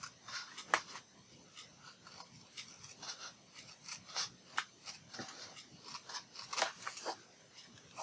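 Sheets of white paper being handled and shifted on a craft mat: faint rustling with scattered light taps and clicks.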